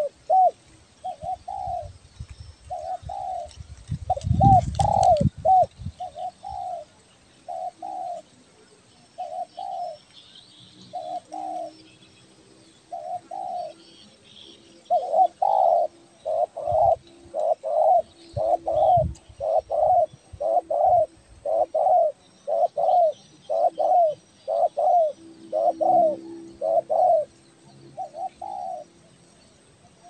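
Spotted dove cooing: a long run of short, arched coo notes, spaced out at first and then coming faster and evenly, about one and a half a second, from about halfway through. A brief low thump about four seconds in, and faint chirps of small birds behind.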